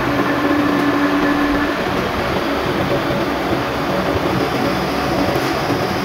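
Manual metal lathe running, a loud, steady mechanical noise with a hum that drops away about a second and a half in.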